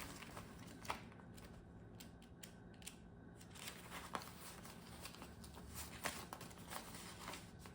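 Paper banknotes and cash envelopes being handled: faint rustling with a few soft, sharp clicks scattered through.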